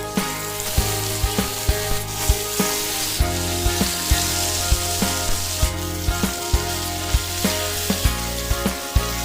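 Fish frying in hot oil, a steady sizzle.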